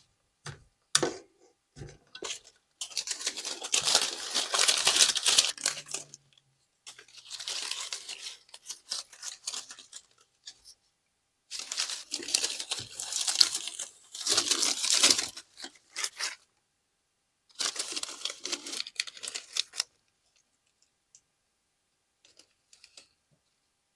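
Plastic crinkling and rustling as artificial ivy-leaf camouflage is wrapped around a compound bow, in four bursts of a few seconds each, with small clicks between them.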